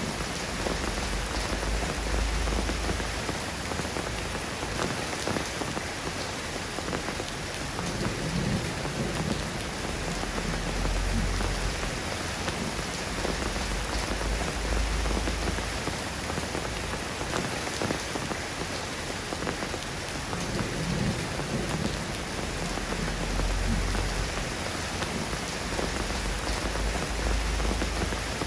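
Steady rain falling on a surface, an even hiss with fine drop detail. Low rumbles swell up every several seconds beneath it.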